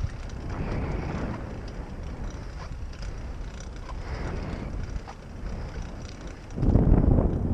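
Wind rushing and buffeting over the microphone of an action camera on a moving bicycle, with the hiss of tyres on a wet road. The wind noise jumps much louder about six and a half seconds in.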